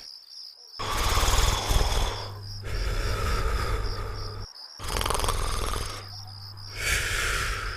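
Cartoon character snoring in long, noisy breaths, about four in a row, with short pauses between them. A faint high chirping repeats evenly in the background.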